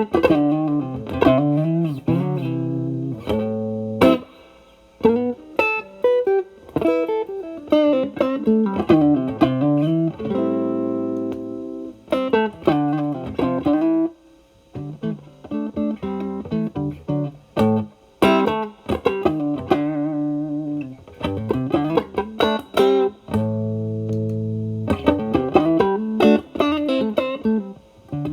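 Stratocaster electric guitar played through an Xotic BB Plus preamp's channel B with the gain at zero, into a Marshall Valvestate amp. Phrases of single-note licks, with a chord held for a couple of seconds about ten seconds in and again near twenty-three seconds.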